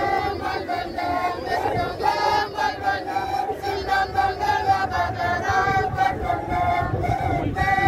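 Many voices chanting together in a loud group chant, held notes breaking up every fraction of a second.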